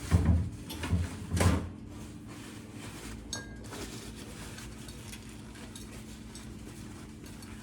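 Dishes and glassware knocking and clinking on a kitchen counter, with three solid knocks in the first second and a half and a lighter click a couple of seconds later, over a faint steady hum.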